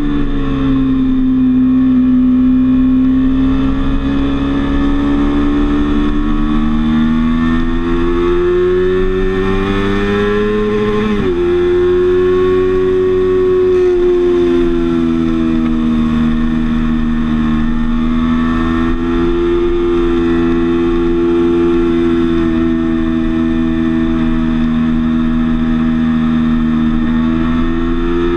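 Sport motorcycle engine running under way at track speed. Its pitch climbs steadily for several seconds, drops sharply about eleven seconds in, then rises and eases gently as the bike goes through the corners.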